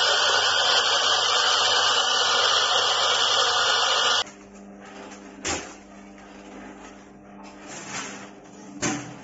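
Commercial electric burr coffee grinder running loudly and steadily as it grinds roasted beans, cutting off suddenly about four seconds in. After that comes a much quieter steady machine hum with two sharp knocks.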